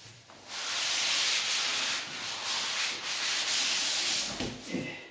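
Plastic-wrapped harmonium being slid out of its thermocol-lined cardboard box: a loud, steady scraping rub for about four seconds, then a few low knocks near the end.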